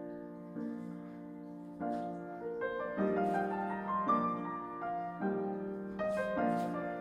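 Background piano music, a gentle melody over changing chords.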